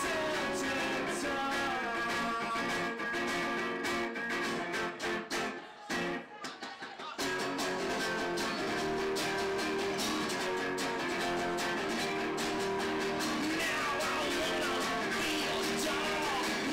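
Live acoustic duo: a steel-string acoustic guitar and a hollow-body archtop guitar strummed together, with a man singing near the end. About five seconds in, the strumming breaks into a few short, choppy stops for about two seconds, then the full strumming comes back in.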